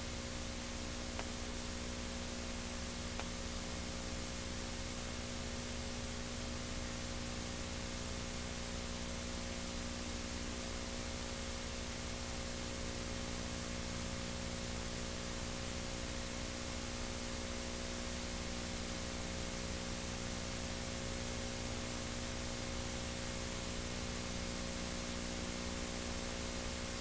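Steady electrical mains hum with a stack of overtones under a constant hiss, the background noise of a digitized VHS tape where the tape carries no programme sound.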